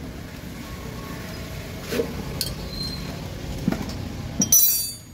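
A few light metal clinks and knocks from tools and hardware being handled, the loudest clink near the end, over a low steady background hum.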